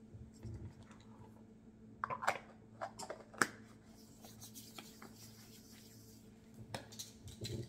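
Light clicks and rustles of small kitchen containers and utensils being handled as salt is measured out, with a sharper click about three and a half seconds in, over a steady low hum.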